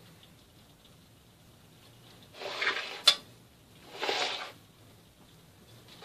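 Metal spoon scooping and spreading chocolate mousse in a stainless-steel cake ring: two short wet scraping swishes, with one sharp clink of the spoon against metal between them.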